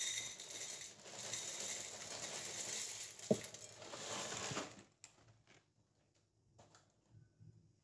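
Chocolate breakfast cereal poured from its plastic liner bag onto a plate: a dense pattering of small pieces with the plastic crinkling. It stops just before five seconds in, leaving a few faint clicks.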